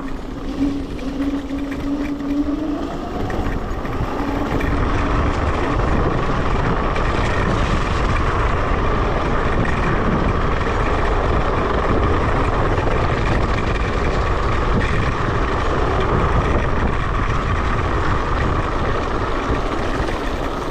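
Electric scooter riding off-road: the motor's whine rises in pitch as it speeds up over the first few seconds, then holds steady, over a constant low rumble of wind on the microphone and tyres on the track.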